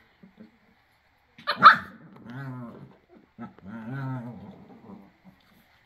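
Small long-haired dogs play-fighting: one sharp bark about a second and a half in, then two stretches of low growling.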